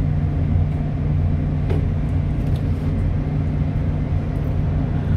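Steady low drone of a ship's machinery running, heard from inside the vessel, with a faint click a little under two seconds in.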